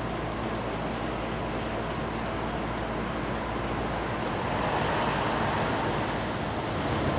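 GE ES44AC locomotives' diesel engines running at low throttle as a slow-moving stack train approaches, a steady low rumble that grows louder about four and a half seconds in.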